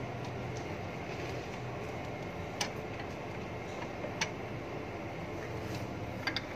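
A few sharp, isolated metallic clicks from hand work on a forklift's steering motor and its wiring, over a steady low hum.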